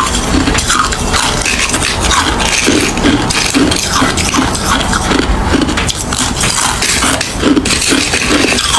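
Ice being chewed close to the microphone: a continuous run of crunchy, crackling bites and chews, with a stronger crunch coming every half second or so.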